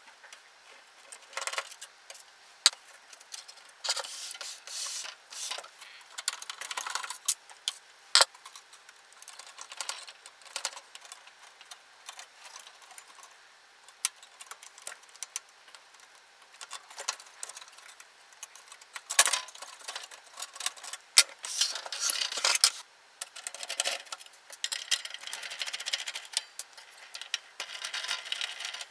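Hands working inside an opened AV receiver: an irregular run of small clicks, taps and scrapes of metal and plastic parts as a screwdriver works loose the connectors and circuit boards. The loudest clicks come in a cluster about two thirds of the way through.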